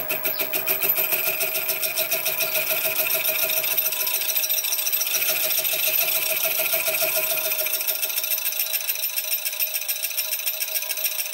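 Sieg SX2P mini mill running a slitting saw at about 450 RPM, cutting a 1.5 mm screwdriver slot into a steel pin: a steady machine whine with a fast, regular pulse from the saw. The lower part of the sound fades about eight seconds in.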